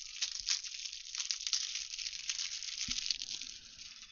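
Plastic wrapping of trading-card packs crinkling steadily as it is handled and torn open.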